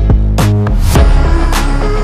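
Background music: a beat with deep bass notes and sharp drum hits over held tones.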